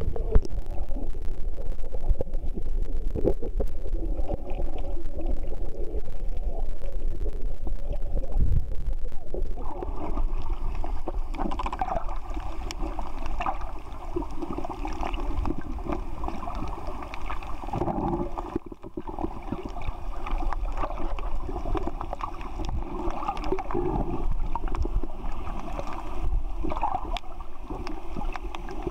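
Muffled underwater sound picked up by a submerged camera: water sloshing and bubbling. The sound changes about ten seconds in.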